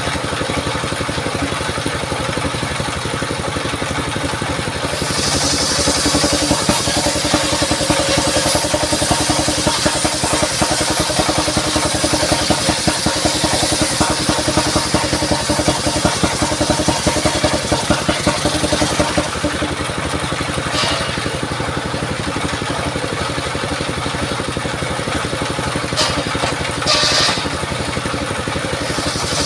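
Engine-driven mobile circular saw running steadily; from about five seconds in its blade cuts through a mahogany log with a loud hissing rasp, which stops a little past halfway, leaving the engine and blade running free.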